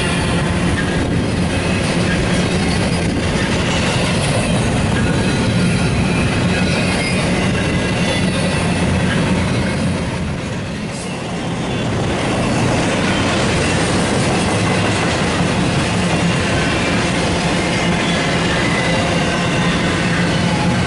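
BNSF double-stack intermodal freight train rolling past: a steady, loud noise of wheels on rail with thin high tones, easing briefly about halfway through.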